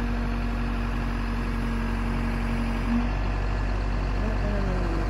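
Tractor engine running steadily, an even drone that holds the same pitch throughout.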